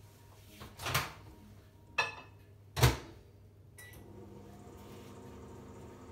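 Microwave oven door opened and shut with clunks, the loudest about three seconds in, then a short beep and the microwave starting up and running with a steady hum.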